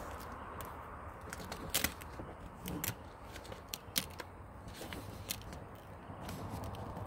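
Paper template rustling and crackling as hands press and smooth it onto a plastic bumper, with a few short sharp crackles, the loudest about two and four seconds in.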